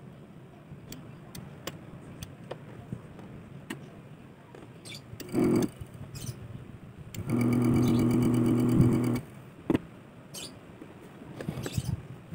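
Electric motor of an ice crusher switched on for a test run, giving a steady hum for about two seconds before cutting off, with a short burst a couple of seconds earlier. Light clicks of handling around it.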